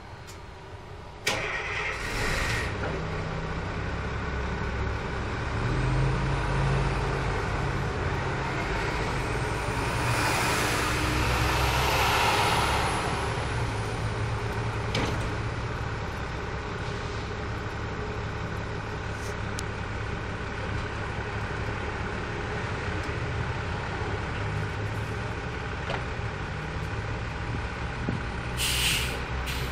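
Transit bus engine starting about a second in, then idling steadily with a low hum. A high whine rises and falls around ten seconds in, and a short hiss of air comes near the end.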